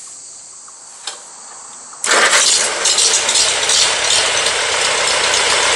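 Farmall Super A tractor's four-cylinder gasoline engine starting abruptly about two seconds in and running loudly, after a single click about a second in.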